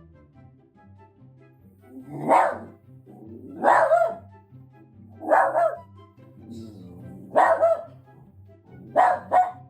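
A dog barking about five times, roughly every one and a half seconds, over quiet background music.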